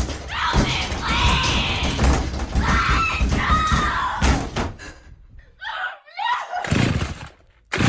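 Horror-film soundtrack of a person screaming and crying out in terror, the high cries sweeping up and down. The screams thin out and drop almost to quiet near the end.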